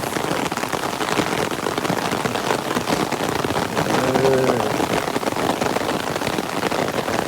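Heavy rain falling steadily, a dense hiss of many drop impacts. A brief voice cuts in about four seconds in.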